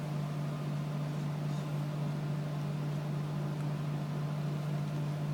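Steady low hum with a faint even hiss, unchanging throughout: room tone.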